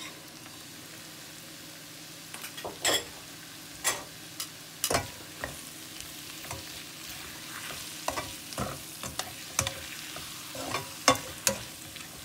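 Onions and bacon frying in butter in a pan with a steady sizzle, while a utensil stirs them and knocks against the pan every second or so, after flour and ketchup have been mixed in.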